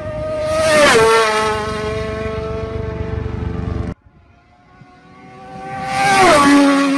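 Road-racing motorcycles passing at full speed, twice: the engine note builds, then drops sharply in pitch as each bike goes by. The sound cuts off abruptly about four seconds in, between the two passes.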